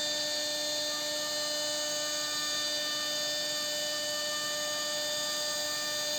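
CNC router spindle running at a steady speed, a constant whine with several fixed tones over an even hiss.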